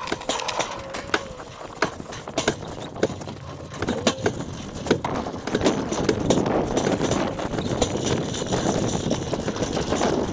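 Flatbed trailer rattling and clanking as it is towed over rough, bumpy pasture ground. It makes scattered knocks at first and a denser, continuous rattle from about halfway, with a short squeak near the start and another about four seconds in.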